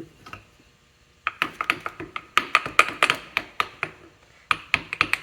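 Quick, irregular run of light clicks and taps from small metal pump parts being handled against each other, several a second, pausing briefly before starting again near the end.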